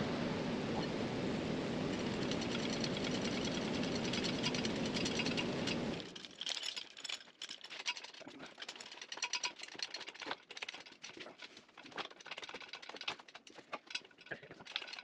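A steady mechanical hiss-like hum for about six seconds that cuts off suddenly, followed by scattered light clicks and metallic taps of hand-tool work.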